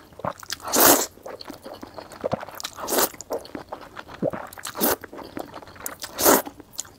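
Soft, oily Nanchang rice noodles being slurped up close to a clip-on microphone: four loud slurps about a second and a half apart, with soft wet chewing between them.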